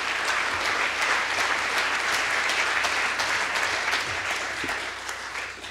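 An audience applauding: many hands clapping in a dense, even patter that tapers off near the end.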